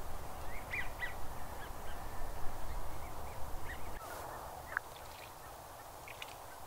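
Birds calling in scattered short notes over steady outdoor background noise. A low rumble drops away about four seconds in.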